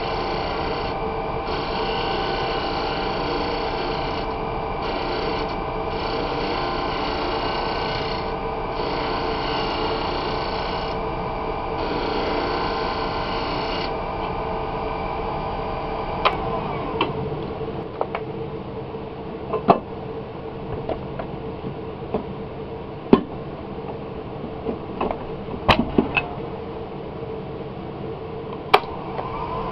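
Wood lathe running with a large skew chisel shaving the spinning wooden pipe bowl: a loud, steady hiss of cutting in long strokes with short breaks, over the steady hum of the machine. About halfway through the cutting stops, leaving the hum with a scatter of sharp clicks and taps.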